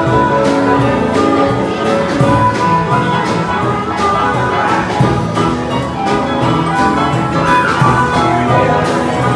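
Music with a steady beat and held instrumental notes.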